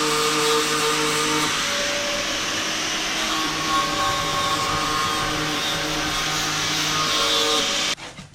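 Angle grinder working on a steel rear axle shaft, running steadily with a hissing, whining sound whose pitch shifts a couple of times, then stopping abruptly near the end.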